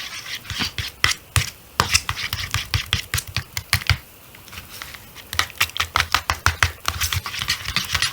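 Shampoo-and-salt slime being stirred in a bowl, a quick, irregular run of sticky clicking and slapping, with a short lull about four seconds in.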